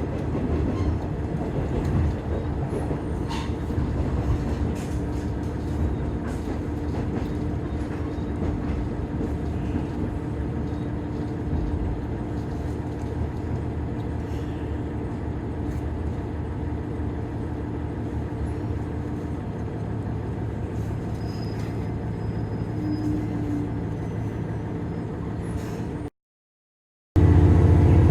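Diesel railcar (KiHa 110 series) running along the line, heard from inside the car: a steady engine drone with wheel and rail noise. The sound cuts out briefly near the end, then returns louder with a heavier low engine rumble.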